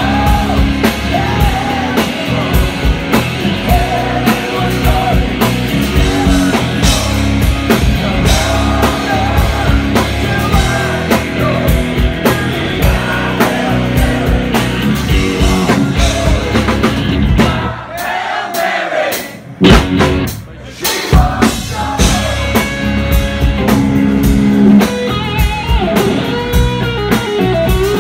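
Blues-rock band playing live: electric guitar, bass guitar and drums behind a male lead vocal. About two-thirds of the way through the band briefly drops away, with a single hit, then comes back in full.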